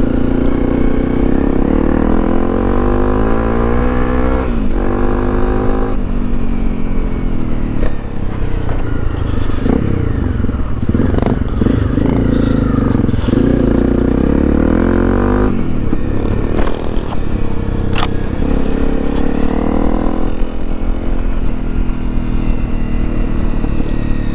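Honda CRF250 single-cylinder trail bike engine running under load off-road, its pitch rising and falling with the throttle over and over. Scattered knocks and clatters run through it.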